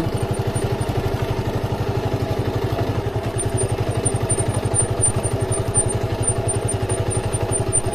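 Motorcycle engine running steadily, with an even, rapid pulse, as the bike rides an off-road track.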